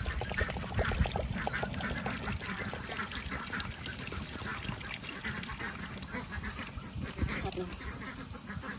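Ducks quacking repeatedly in short runs, over a steady hiss of chicken cooking in the pan with coconut water.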